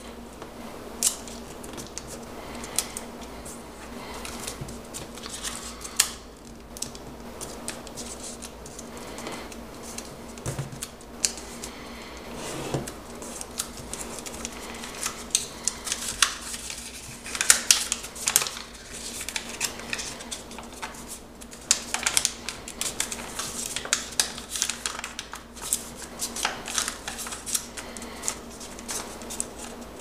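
A square of origami paper being folded by hand: crisp rustles and crackling clicks as the paper bends and the creases are pressed flat, growing busier about halfway through.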